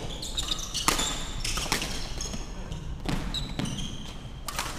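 Badminton play on a wooden court: several sharp racket-on-shuttlecock hits and footfalls, with short high-pitched squeaks of court shoes on the floor.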